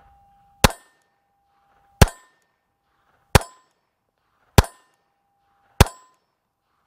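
Heckler & Koch HK4 pistol firing .380 ACP: five shots at a steady pace about 1.3 s apart, with a sixth right at the end. A steady ringing follows the shots, from hits on a steel target.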